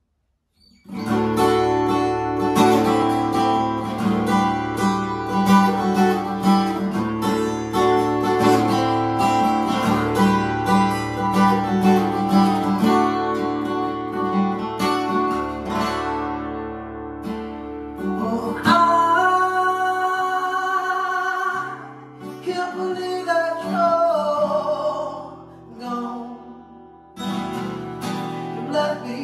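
Acoustic guitar played with chords and picked notes, starting about a second in. In the second half a man's voice sings a wavering melody over the guitar.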